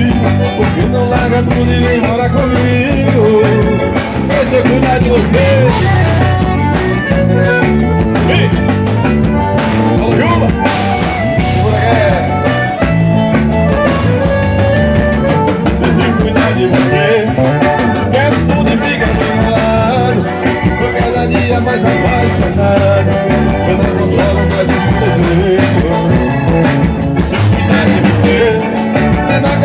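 Live forró band playing: accordion over electric guitars, bass and drums, with a steady beat.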